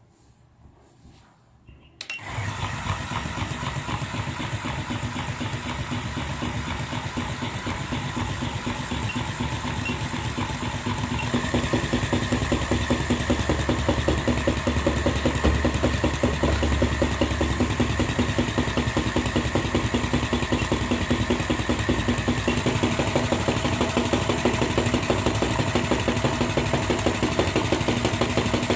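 Small gear motor and plastic gearbox of a battery-powered walking toy turtle whirring, switching on suddenly about two seconds in on 5 V from a bench power supply. About eleven seconds in it gets louder, with a more rhythmic chatter.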